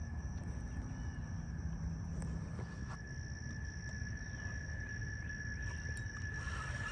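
A steady, high-pitched insect drone, one even unbroken tone, over a constant low outdoor rumble.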